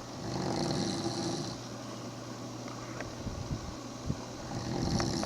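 A man snoring loudly in his sleep: one long snore of about a second and a half, then quieter breathing, with the next snore building near the end.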